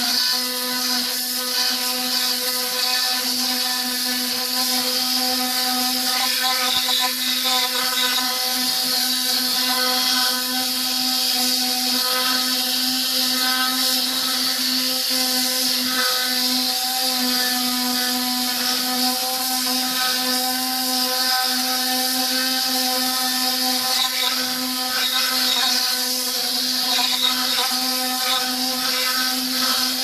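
Air-powered cleaning gun with a spinning brush head scrubbing an alloy wheel. It gives a steady pitched hum under a strong hiss of air and spray.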